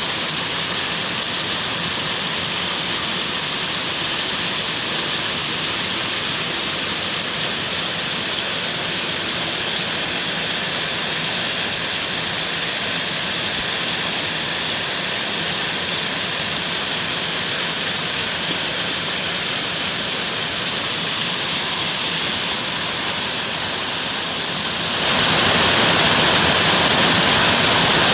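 Steady rain falling. Near the end the rush abruptly becomes louder and fuller, then holds steady.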